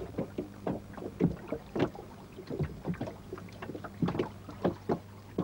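Small open rowing boat on choppy water: irregular knocks and slaps of water against the hull, two or three a second, over a steady low hum.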